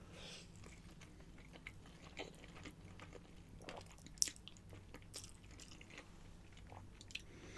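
Faint close-up chewing of pasta: soft wet mouth clicks and smacks, with one sharper click about four seconds in.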